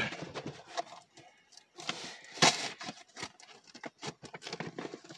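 Close-up handling noises: a run of irregular clicks, taps and rustles, with a louder scraping rustle about two and a half seconds in.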